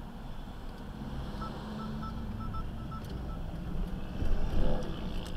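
Steady road and engine noise inside a truck cab driving through city traffic. About a second and a half in, a run of short high beeps sounds for about two seconds, and the noise swells louder near the end.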